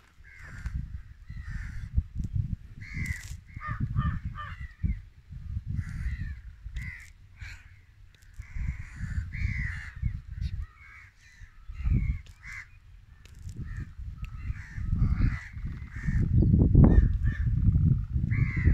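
Birds calling over and over in short calls, over wind buffeting the microphone in gusts that are loudest near the end.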